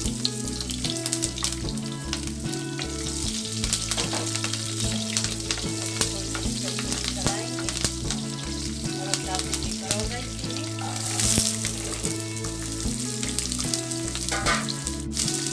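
Cut green chillies sizzling and crackling in hot oil in a kadhai, stirred with a wooden spatula. About two-thirds of the way through the sizzling briefly gets louder as sliced karonda berries are tipped in to fry with the chillies.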